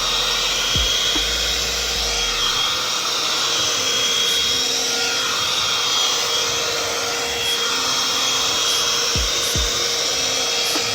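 amika Double Agent hot-air dryer brush running steadily on its heat setting: a constant fan rush with a steady motor whine, drawn through hair. A few low bumps from handling the brush.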